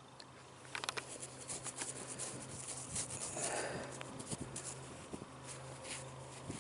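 Fingers rubbing and scratching dirt off a freshly dug coin, with irregular small scratches and clicks and a brief rustle about halfway through.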